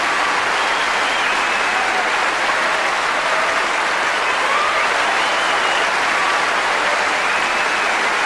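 Audience applauding steadily, the sound of a live concert crowd between songs.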